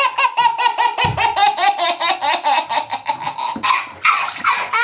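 Young child laughing hard: a long run of quick, high-pitched laughs, about five a second.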